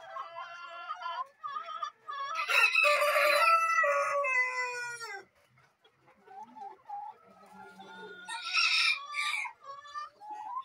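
Sussex rooster crowing once: a loud call of about three seconds whose pitch drops at the end. Hens cluck softly around it, and another short loud call comes near the end.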